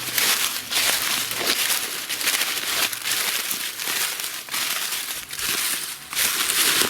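Close rustling and crinkling against the microphone, in uneven surges with brief dips.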